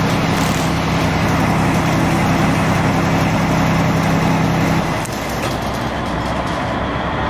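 A large engine running steadily with a low hum, which drops away about five seconds in, leaving a broad rush of outdoor noise.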